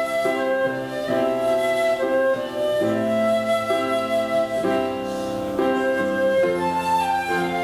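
Instrumental music: a sustained melody over slowly changing chords, each held for about a second.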